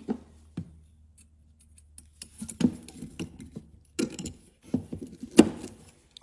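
A coiled steel exhaust spring is being stretched and hooked with pliers across the pipe-to-muffler joint of a quarter midget exhaust. It makes a run of small metallic clicks and clinks, thickest in the second half, with a sharp click about five and a half seconds in.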